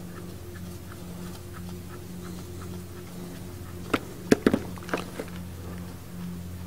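Hold-down nut on a Cummins 5.9L fuel crossover tube being worked off by hand. There are faint light ticks, then a quick cluster of sharp clicks about four to five seconds in, over a steady low hum.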